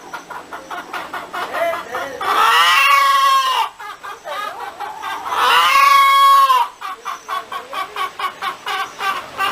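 Hen cackling: a run of quick, short clucks, broken twice by a long drawn-out call that rises and falls in pitch, about two and five seconds in.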